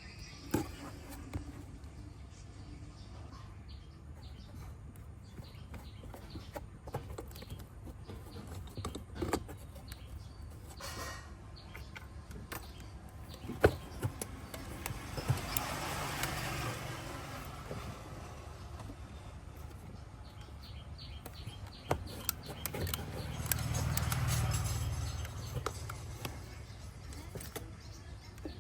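Low steady background hum with scattered small clicks and taps. A passing vehicle swells and fades twice, around the middle and again near the end.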